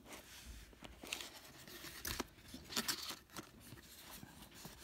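Cardboard mailer box opened by hand: the tuck-in lid is pulled free and folded back, with a few short scrapes and rustles of cardboard, the loudest about two and three seconds in.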